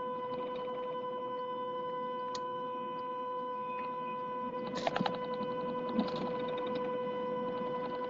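Car horn held down without letup: one steady, unbroken tone, heard through a live video call, with a few light clicks about five and six seconds in.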